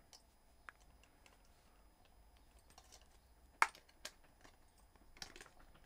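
Faint, scattered clicks and taps of a fishing lure's plastic packaging being opened by hand, with one sharper click about three and a half seconds in.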